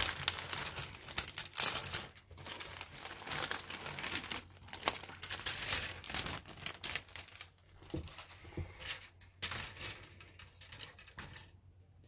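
Clear plastic kit bag crinkling and crackling in irregular bursts as a large grey plastic model-kit sprue is handled inside it and pulled out by hand; the crackle eases off in the last couple of seconds.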